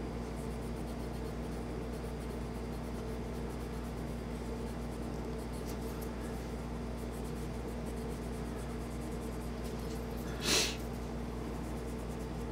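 Faint scratchy rubbing of a cotton swab worked into the serrations of a metal pistol slide, over a steady low hum. A brief breathy noise comes about ten and a half seconds in.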